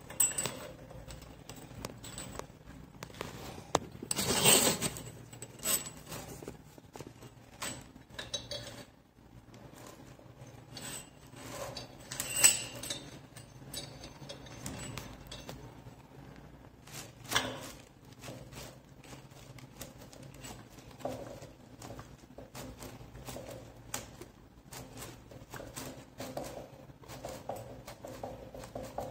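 Small metallic clicks, taps and rattles as braided steel flexible hoses are handled and screwed by hand into the threaded inlets of a chrome mixer tap. Scattered sharp clicks throughout, with a brief louder burst of noise about four seconds in.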